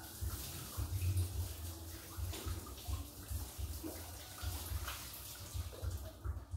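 Water running steadily for about six seconds, then stopping, over an uneven low rumble.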